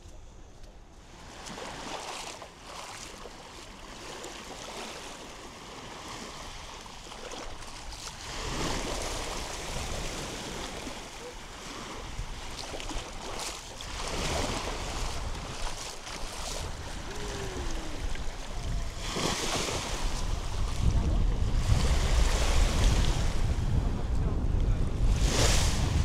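Small waves breaking and washing up a sandy beach, swelling every five or six seconds. Wind buffets the microphone, with a low rumble that grows heavier in the last few seconds.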